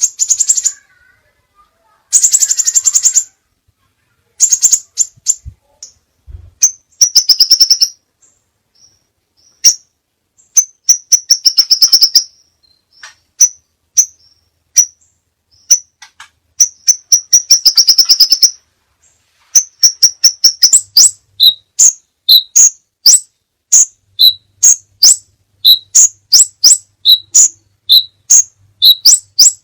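Crimson sunbird singing: high-pitched rapid trills in bursts of a second or two, then in the last third a steady run of short, sharp notes, about two a second, alternating between a higher and a lower pitch.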